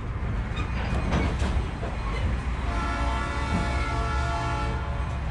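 Locomotive horn sounding one long, steady blast from about halfway through, over the low rumble of the passenger cars running on the rails.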